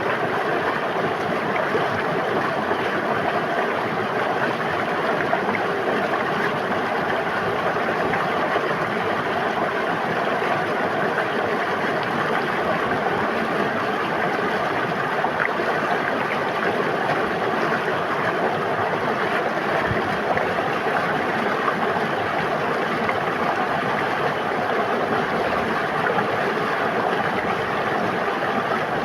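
River water flowing and splashing over stones, a steady rushing babble.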